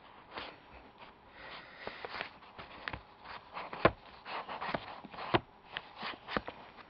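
Plastic clicking and rasping of a custom Rubik's-type puzzle cube being twisted by hand, its layers turning and snapping into place in an uneven run of clicks, with two sharper clacks about four and five and a half seconds in.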